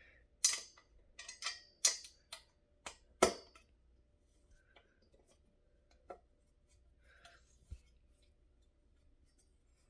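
Sharp clicks and knocks of metal flat-pack desk parts being handled and fitted together: about eight in quick succession in the first three and a half seconds, then a few scattered ones.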